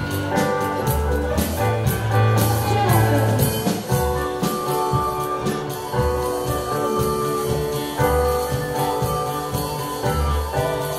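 Live contra dance band playing an upbeat dance tune for the dancers, with held melody notes over a bass line and a steady beat.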